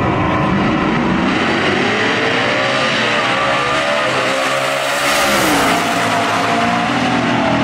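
Two drag-race cars launching off the line and accelerating hard down the strip at full throttle. The engine pitch climbs and dips once about five and a half seconds in.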